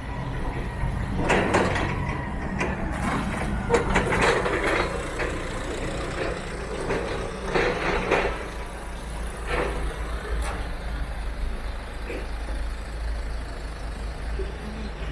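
A vehicle engine, most likely a truck's, running steadily at idle amid street noise, with several short bursts of hissing and clatter.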